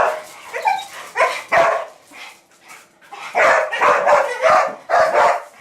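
Dog barking in a run of short barks, spaced out at first and coming closer together in the second half.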